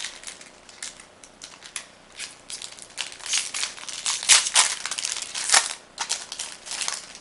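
Foil wrapper of a Magic: The Gathering booster pack crinkling and tearing as it is pulled open by hand, in irregular crackles that are loudest from about four to five and a half seconds in.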